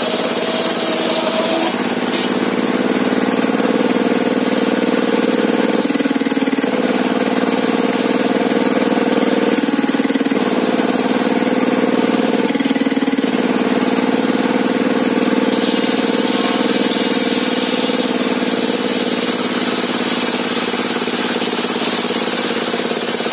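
Engine powering a sawmill table saw, running steadily, its pitch dipping and recovering a few times as the load changes.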